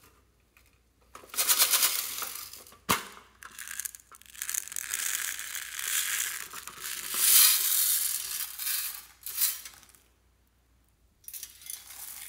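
Small plastic beads rattling and pouring around inside a metal pencil tin, with one sharp click about three seconds in. After a short pause, a handful of beads patter down onto the slime near the end.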